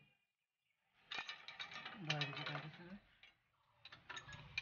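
Open-end spanner clicking and clinking against steel nuts as the gear lever mounting nuts on a tractor gearbox cover are tightened. The clicks come in short irregular runs, starting about a second in, pausing briefly and picking up again near the end.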